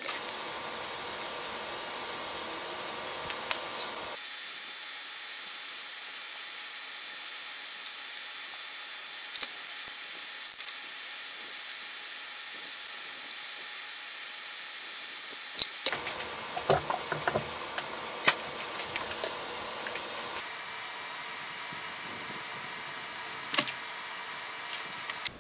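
Steady hiss of room and recording noise, with faint scattered clicks and rustles of paper being handled and cut with scissors.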